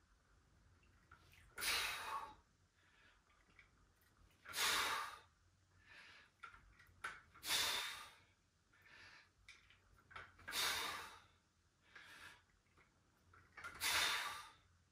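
A man's forceful breaths out, five in all, about every three seconds, each paced to a rep of a dumbbell press, with fainter breaths between.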